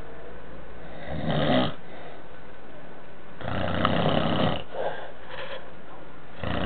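Someone snoring in sleep: irregular snores with quieter gaps between them. There is a short one early, a longer one in the middle followed by two brief puffs, and another starting near the end.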